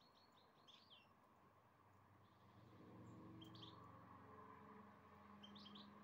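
Faint, short chirping calls of a European goldfinch: a quick run of notes at the start, then two brief call clusters, one in the middle and one near the end. A faint low drone comes in under them about halfway through.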